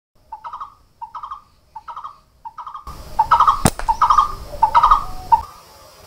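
A bird call repeated at a steady pace, about three short calls every two seconds. A single sharp snap comes just after the middle.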